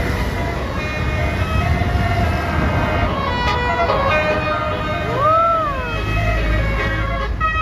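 Basuri telolet bus horn playing a tune of short notes stepping from pitch to pitch, over a low rumble. About five seconds in, a siren-like tone rises and falls once.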